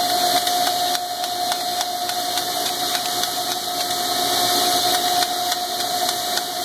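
Koyo KC 300 needle-bearing grinder running steadily: a constant whine over the hiss of grinding and coolant spray, with faint regular ticking.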